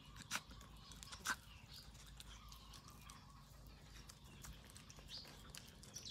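A dog eating: two sharp crunches in the first second and a half, then faint scattered ticks and small high chirps.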